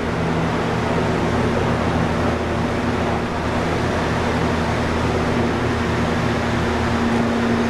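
Steady mechanical hum and rushing noise of running workshop machinery, with a low hum that grows stronger near the end.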